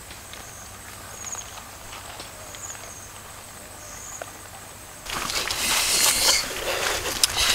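Faint insect sounds: a steady high drone with three short high chirps about a second and a half apart. About five seconds in, a much louder scratchy noise with sharp clicks starts suddenly.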